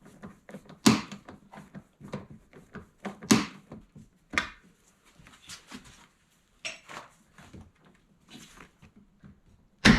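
Irregular clicks, clunks and rattles of a 2021-on Ford truck exterior door handle being worked loose and pulled out of the door, with the hand tool knocking against it. The loudest sharp knock comes just before the end.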